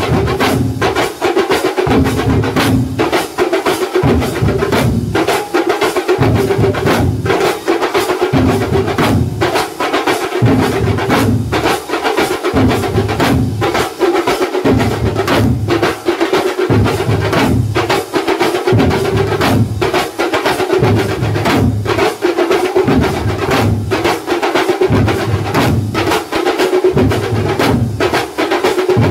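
Kerala thambolam percussion ensemble playing: many large bass drums and smaller stick-beaten drums in a loud, driving rhythm, with deep bass strokes landing about once a second under fast, dense higher drumming.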